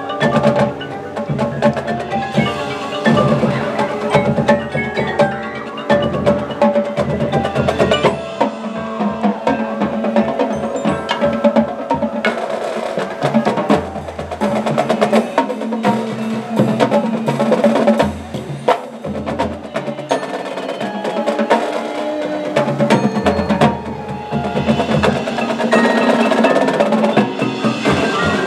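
High school marching band playing its field show, led by percussion: the drumline's strikes and rolls with the front ensemble's mallet instruments (marimbas, xylophones, bells), over deep bass notes that come and go.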